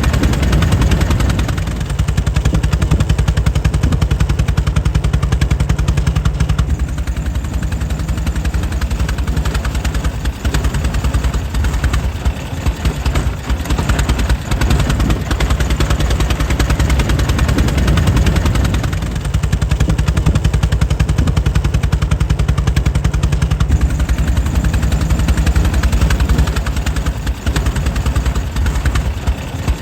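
Air-cooled 1904 Mitchell engine running steadily, its firing strokes coming as a rapid, even chain of pops.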